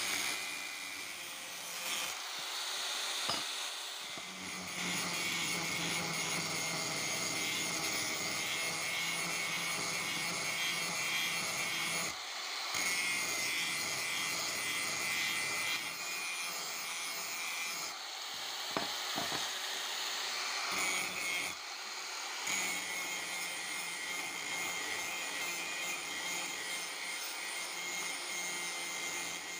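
Electric angle grinder running with a blue abrasive disc pressed against a steel knife blank, a steady grinding hiss over the motor's whine as the blade is ground to shape. The grinding dips briefly a few times.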